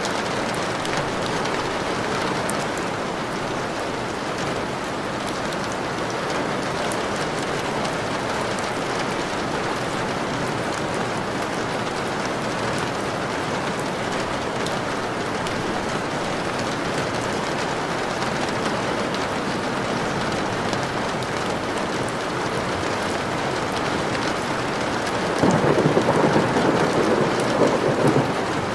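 Steady rainfall, with a roll of thunder about 25 seconds in that lasts about three seconds.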